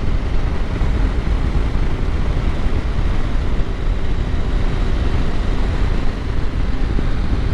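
Wind rushing over the microphone of a Husqvarna Norden 901 riding at steady road speed, with the bike's parallel-twin engine running steadily underneath.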